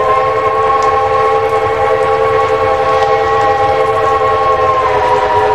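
Southern Pacific five-chime steam whistle on Sierra Railway no. 34 blowing one long held chord, dropping slightly in pitch near the end.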